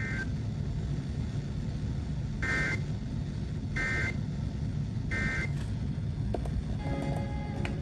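EAS/SAME end-of-message data bursts, short buzzy two-tone warbles repeating about 1.3 s apart, closing a NOAA Weather Radio severe thunderstorm warning over steady radio static. A few faint steady tones and clicks come in near the end.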